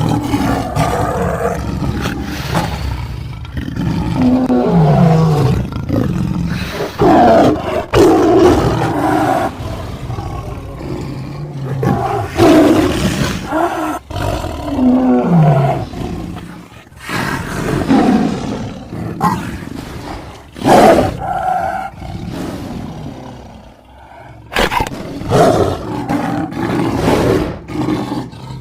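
A designed creature sound of big-cat roars and growls, built from mixed tiger, leopard and monster roar recordings, one loud roar after another. Some growls fall in pitch. There is a short lull about three-quarters of the way through before the roaring resumes.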